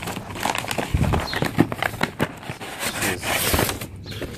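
Crumpled brown kraft packing paper rustling and crinkling as it is pulled out of a cardboard box, with irregular crackles and a few louder scrunches.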